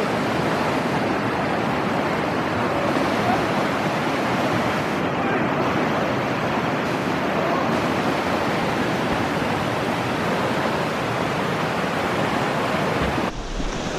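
Shallow river rapids rushing steadily over rocks. Near the end the sound changes abruptly and a low rumble comes in.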